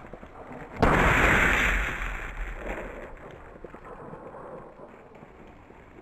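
A single shotgun shot about a second in, its loud report trailing away over the next few seconds.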